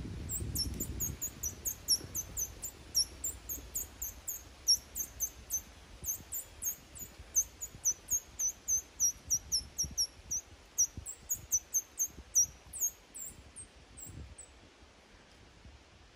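An animal's rapid, high-pitched chirping, about three sharp chirps a second, keeping on for some fourteen seconds before it fades and stops. A low rumble is heard in the first second.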